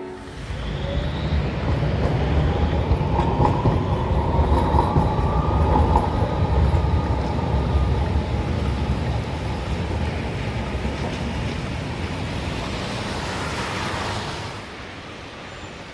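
Loud, steady low rumble of a large vehicle or heavy machinery in motion, with faint high squealing tones in the first few seconds; it eases off near the end.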